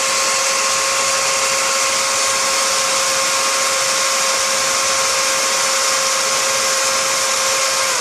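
Electric drill running at a steady speed, an even whine over a dense hiss, its bit boring into a thick toenail.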